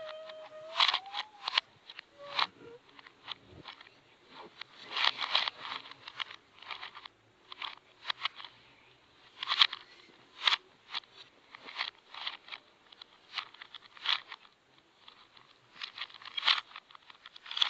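Plastic Rubik's Cube pieces clicking and clacking as the cube is handled and fixed by hand, in irregular single clicks and short flurries of clicks.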